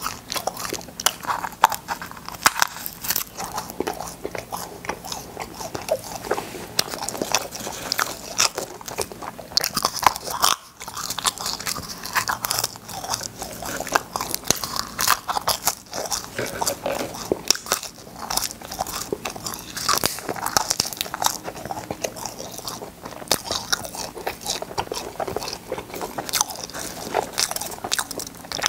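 Close-miked crunching and chewing of cola-flavoured space candy: a quick, irregular run of crisp bites and crunches, with a brief lull about ten seconds in.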